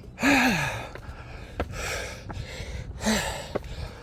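A man breathing hard and panting from the exertion of climbing a long flight of stairs: about one heavy breath a second, with a groan falling in pitch on an exhale early on and a shorter voiced gasp about three seconds in. A few short clicks sound between the breaths.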